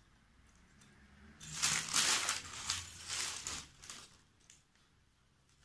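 Baking paper crinkling and rustling as it is handled, starting about a second and a half in and lasting a couple of seconds.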